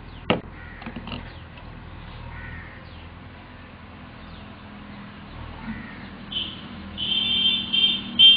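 A crow cawing several times in quick succession over the last two seconds, each call short and loud. A sharp knock sounds about a third of a second in.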